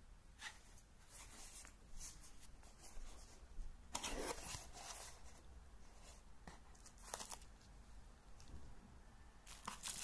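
A small cardboard box being opened and its contents handled: scattered rustling and crinkling of cardboard, paper and plastic wrap. The loudest rustle comes about four seconds in, with another around seven seconds and a further burst near the end.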